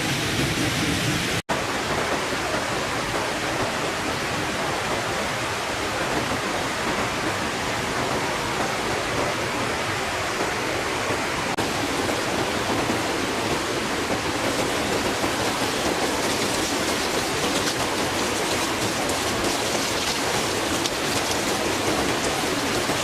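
Steady, even rushing noise of falling water. It drops out for an instant about a second and a half in.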